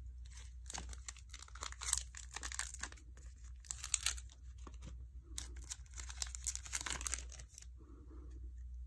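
Foil wrapper of a Panini Prestige football card pack being torn open and crinkled: repeated crackling that is densest about two and four seconds in and dies away about a second before the end.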